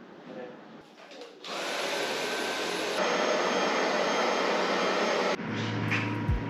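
Stick vacuum cleaner switched on about a second and a half in, its motor spinning up into a steady whine and rush of air that gets louder about halfway through, then stopping abruptly near the end.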